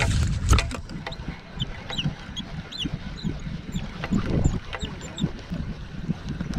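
Wind rumbling on the microphone, with knocks and rustles from handling a spinning rod and reel. Short high chirps come and go.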